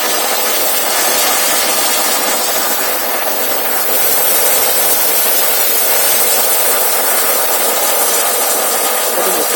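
Ford Mondeo Mk3 engine running after a cold start, with a steady hissing whistle from under the bonnet.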